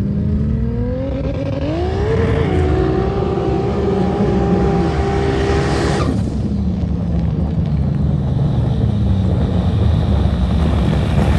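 Modified Polaris RZR side-by-side revving up hard in sand, its engine note climbing and then holding high for a few seconds. The note drops off sharply about six seconds in, and a lower, rougher running sound follows as it drives past.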